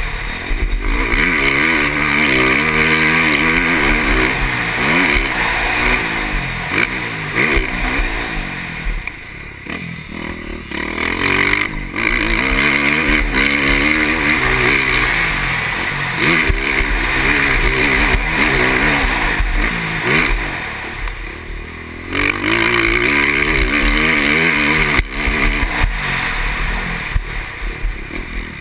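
KTM motocross bike engine at racing pace, revving up hard and shifting through the gears. The throttle is rolled off briefly twice, about a third of the way in and again about three quarters through, then opened up again.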